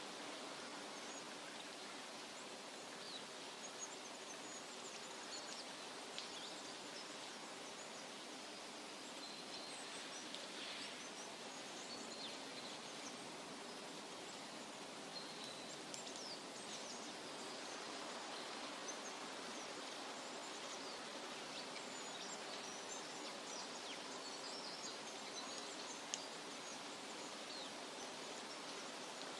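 Forest nature ambience: a steady soft rushing noise with faint, scattered high bird chirps throughout, and a single brief click near the end.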